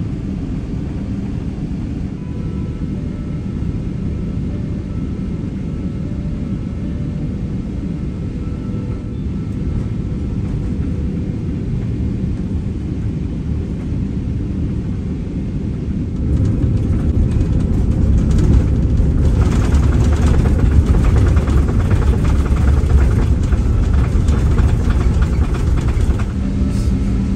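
Cabin noise of a Boeing 777-300ER on landing: a steady rumble of its GE90 engines and the airflow. About sixteen seconds in it swells into a louder roar as reverse thrust is applied on the landing roll, then eases back near the end.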